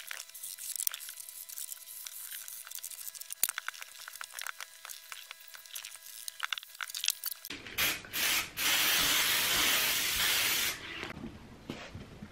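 Aerosol spray can hissing: two or three short bursts, then one long spray of about two seconds, the loudest sound here. Before it, soft rustling and light taps of foam and fabric being handled.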